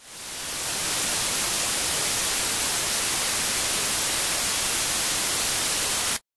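Steady hiss of white-noise static, like an untuned TV, swelling in over the first half second and cutting off suddenly after about six seconds.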